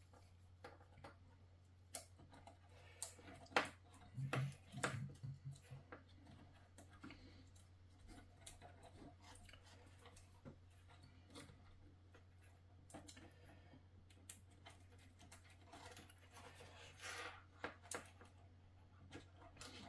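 Scattered small clicks and knocks from hands fitting a spliced fibre-optic pigtail and its connector into a subscriber socket box, busiest about four to five seconds in. A steady low hum runs underneath.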